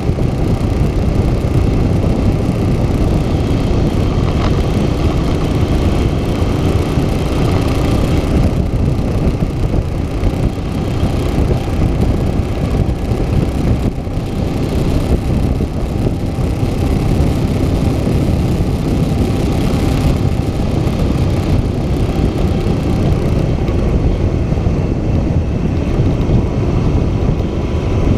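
Moto Guzzi Stelvio motorcycle travelling at a steady cruising speed: a constant rush of wind and road noise with the engine running underneath, loud and without let-up.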